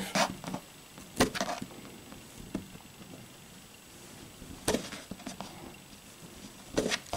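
Scissor blade tip scraping and picking at a clear plastic security seal tab on a cardboard kit box: a handful of short, sharp scrapes and clicks a second or two apart.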